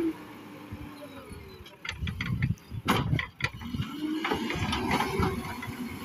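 JCB 3DX Super backhoe loader's 74 hp diesel engine working under load as the front bucket pushes soil. The engine note drops at first and climbs again past the middle, with a burst of sharp clanks and knocks about two to three and a half seconds in.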